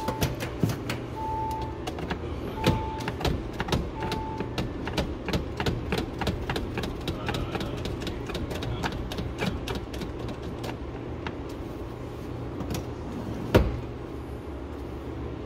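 A single-pitched warning beep repeating about once every second and a half, stopping about four seconds in, over a string of sharp clicks and light knocks from hands working wiring and trim inside a car, with one louder knock near the end. A low steady hum runs underneath.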